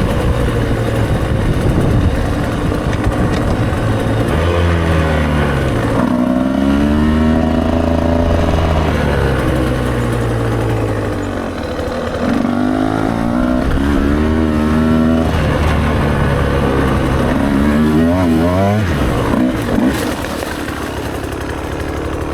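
Enduro motorcycle engine under way off-road, revving hard. Its pitch repeatedly climbs and drops back as the rider opens the throttle and shifts gears.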